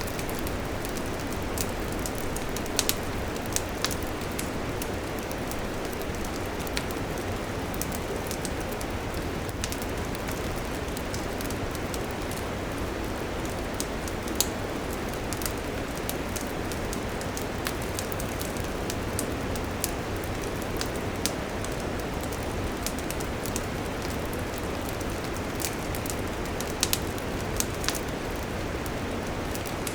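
Wood campfire burning with a steady rushing hiss and irregular sharp crackles and pops, a few of them louder.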